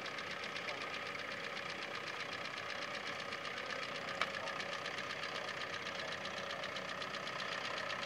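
Grey Ferguson tractor engine running steadily under load as it pulls a plough, with a fast, even pulse. A single sharp click a little past four seconds in.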